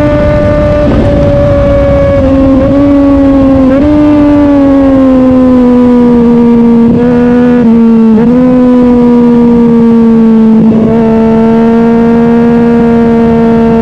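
Sport motorcycle engine running hard at high revs while riding, a steady high-pitched note that sags slowly in pitch, with a few brief dips and pick-ups as the throttle changes, over a low rushing noise.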